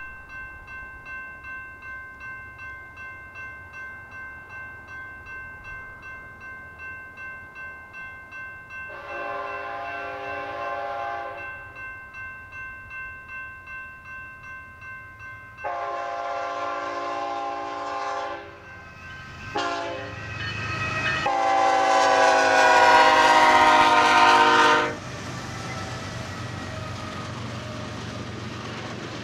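Grade-crossing bell ringing about twice a second. The lead BNSF ET44C4 locomotive's multi-note air horn sounds the crossing signal over it: two long blasts, a short one, and a final long blast that is the loudest. After the horn stops, the locomotives and tank cars rumble steadily over the crossing.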